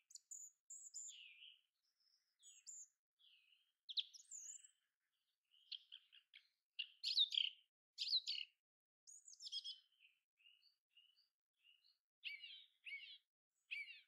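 Small songbirds chirping and calling: a string of short, high chirps and quick gliding notes, busiest around the middle and again near the end.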